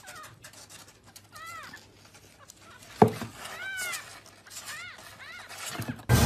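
A cat mewing: a few short, high-pitched mews, each rising then falling in pitch. A sharp knock about halfway through is the loudest sound.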